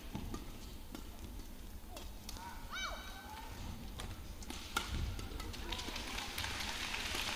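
Badminton arena ambience between rallies: a low hall hum, a brief high-pitched squeal about three seconds in, a single sharp tap near the middle, and a rising wash of crowd noise in the second half.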